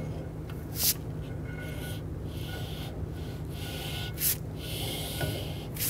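Steel rear axle shaft of a Ford F-150 being slid slowly by gloved hands into the axle tube: a soft rubbing and scraping. Three short hissy sounds come about a second in, near four seconds and at the end.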